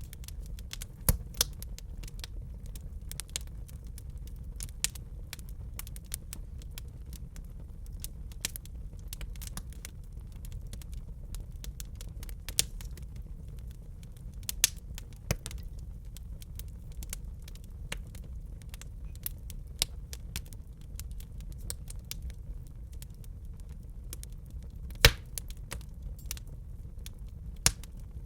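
Wood fire crackling in a fireplace: irregular sharp pops and snaps over a low steady rumble of the flames, with one loud pop near the end.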